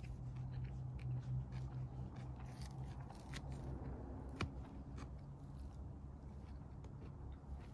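Close-miked chewing and biting of rotisserie chicken, with scattered small crunches and wet clicks, over a steady low hum.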